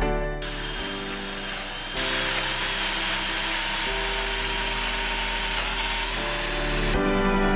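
Cordless power drill running as it bores into wooden slats, louder from about two seconds in and stopping near the end, over background music.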